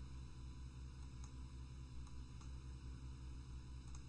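Steady low electrical hum, with a few faint clicks of a computer mouse as points of a line are placed.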